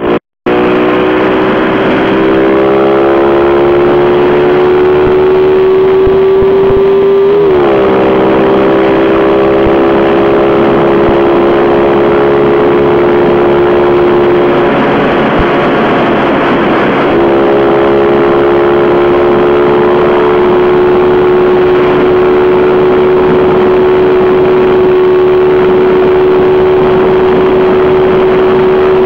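Honda Innova 125's single-cylinder four-stroke engine running at high revs, with the speedometer well up: a steady drone that climbs slowly in pitch, dips briefly and recovers about seven seconds in. For a couple of seconds in the middle a rushing noise covers it.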